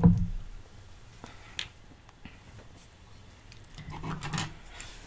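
Soft eating sounds of someone eating cheesecake: a sharp click about a second and a half in and a brief mouth sound with a low hum about four seconds in.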